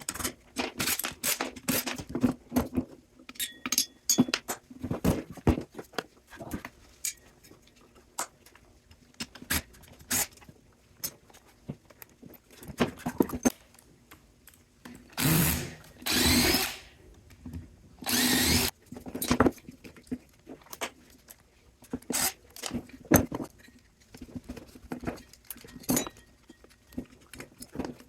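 Handheld power drill running in two short bursts, one of about a second and a half and one shorter, amid many sharp metal clanks and clicks of parts and tools being handled, as fasteners are driven out to remove the motor from a scrap cooling unit.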